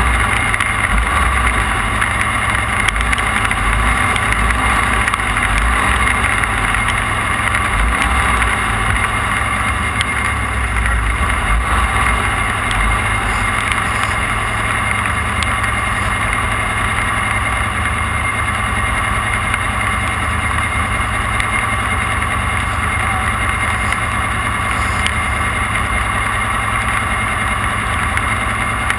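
Off-road race vehicle's engine running under way at a steady pitch, heard on board over a constant low rumble.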